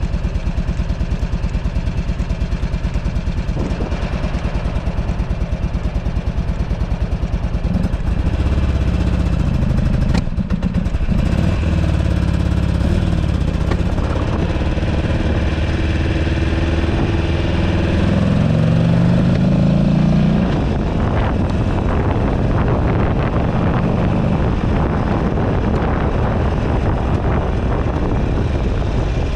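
The air-cooled V-twin of a 2008 Buell Ulysses XB12XT motorcycle running on the road, pulling harder about eight seconds in and rising in revs just before the middle, then dropping back. Wind buffets the handlebar-mounted microphone.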